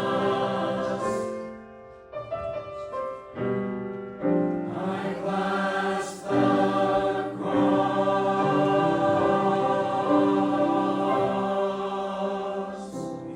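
Church choir singing a hymn. The voices drop away briefly about two seconds in, then return and hold long notes toward the end, fading out near the close.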